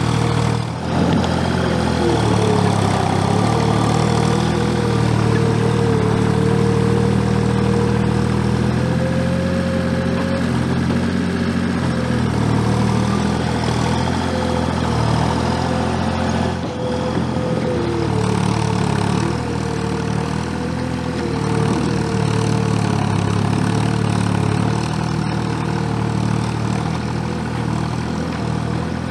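Gehl 4835 SXT skid steer's diesel engine running steadily under work, with a high whine that wavers up and down in pitch.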